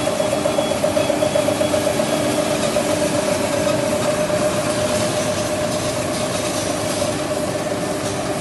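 Gallus EM 510 slitter rewinder and die cutter with its TR 510 turret rewinder running in production: a steady mechanical drone with a strong, even mid-pitched whine.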